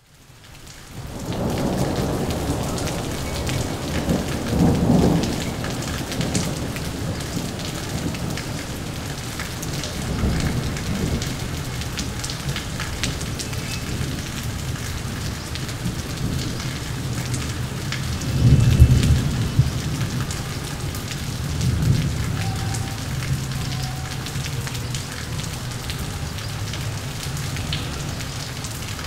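Steady rain falling during a thunderstorm, fading in over the first second, with thunder rumbling several times; the loudest rumble comes about two-thirds of the way through.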